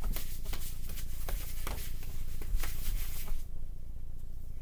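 Irregular rustling and soft taps from a child patting his head and spinning right next to the microphone, stopping about three and a half seconds in.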